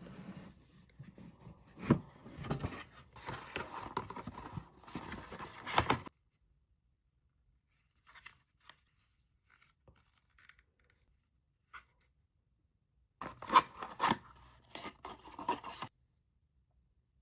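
Packaging being opened by hand: rustling, scraping and tearing of the wrapping in two spells, a long one of about six seconds and a shorter one near the end, with a few faint clicks between them.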